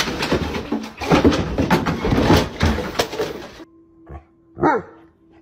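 Loud rustling and knocking handling noise, then after a cut a dog gives one short whine that falls in pitch, over a faint steady hum.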